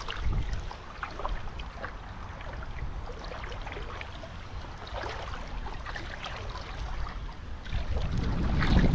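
Footsteps wading through shallow pond water, with small scattered splashes. A low wind rumble on the microphone grows louder near the end.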